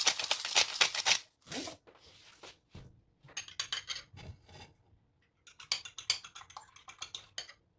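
Himalayan salt grinder being twisted in three short runs of rapid crunching clicks, the first the loudest.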